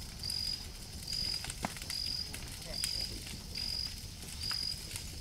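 Bonfire of dry brush and old branches crackling, with sharp pops scattered through it. A high, steady chirp repeats about once a second behind it.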